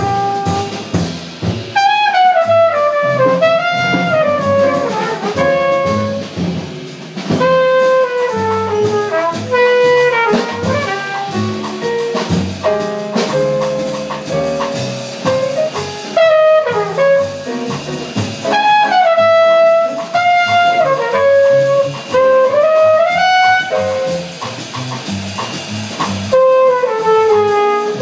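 Live small-group jazz: a trumpet plays a flowing melodic solo of runs and held notes over walking double bass, drum kit with ride cymbal, and piano.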